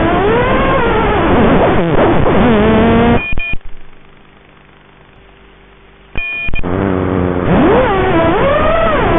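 FPV quadcopter's brushless motors whining, the pitch sliding up and down with the throttle. About three seconds in the motors cut off with a short electronic beep, leaving a faint steady hum for about three seconds. Then another beep, and the motors spin up and whine again.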